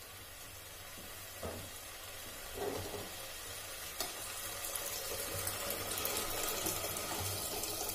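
Rice, peas and spices sizzling in ghee in a pressure cooker on a gas flame, then water poured in from a steel tumbler, a steady pour that grows louder in the second half.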